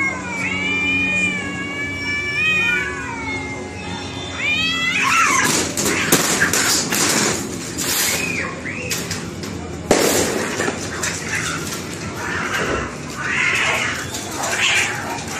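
Two domestic cats caterwauling at each other in long, wavering, overlapping yowls, a territorial standoff. About five seconds in, the yowling turns into the harsh, broken screeching of a fight.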